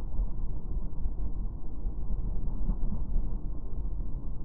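Triumph Explorer motorcycle on the move: a steady, muffled low rumble of engine and wind noise, with nothing in the higher range.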